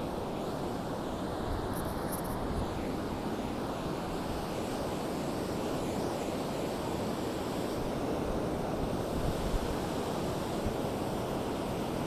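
Ocean surf breaking and washing up a sandy beach: a steady rushing noise, with wind rumbling on the microphone.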